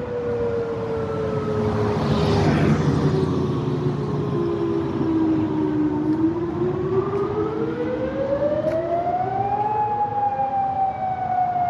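Federal Signal Modulator electronic outdoor warning siren sounding a test wail: a single tone slides slowly down, rises from about six seconds in, then eases down again near the end. A vehicle's rumble swells underneath about two to three seconds in.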